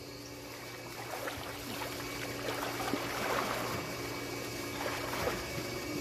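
Pool water splashing and sloshing as a swimmer paddles through it with his arms, growing louder about three seconds in. A steady low hum runs underneath.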